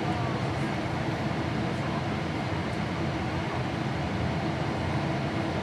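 Steady cabin drone inside a Boeing 777-300ER airliner: engine and airflow noise, a low, even rumble with no changes.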